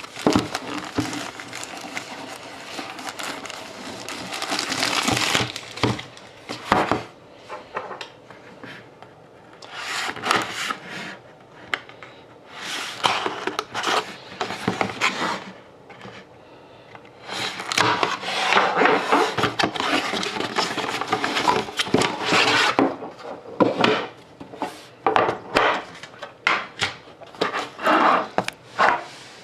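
A sealed box of hockey cards being opened by hand: packaging rustling, tearing and scraping in uneven bursts, with sharper crackles near the end.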